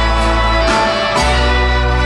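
Blues-rock band and symphony orchestra playing live together, with electric guitar and orchestral strings over a held bass.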